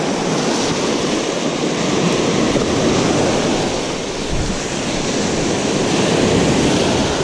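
Small surf breaking and washing up a sandy beach in a steady wash of noise that swells and eases, with wind buffeting the microphone.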